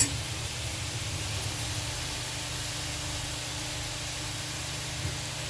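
Steady hiss of food cooking in pots on the stove, with a low hum underneath. A single short knock right at the start.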